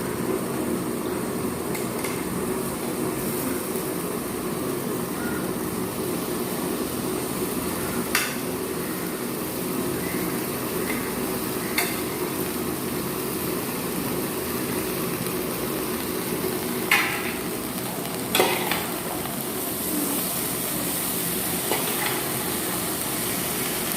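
Vegetables sizzling in a pan as they are stirred, with a few sharp knocks of the spoon against the pan.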